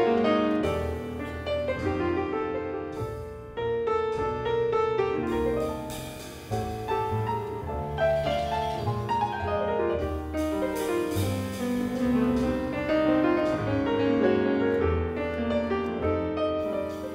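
Grand piano played fast, a dense stream of notes and chords.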